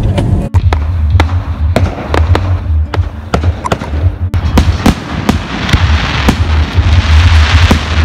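Fireworks display: a rapid, irregular series of bangs from bursting shells, with a crackling hiss building over the last few seconds.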